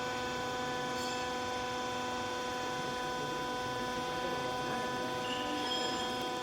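Hydraulic baling press running: a steady hum with several constant whining tones from its electric motor and hydraulic pump.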